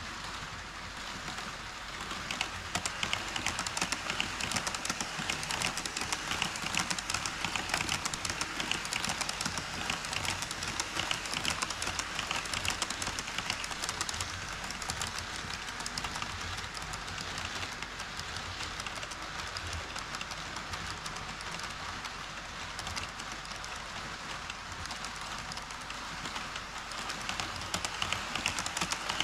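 HO scale model trains, an E5 series shinkansen and a container freight train, running over Kato Unitrack on a truss bridge: a continuous rapid clicking clatter of wheels on the rails. It grows louder a couple of seconds in and again near the end as trains pass close by.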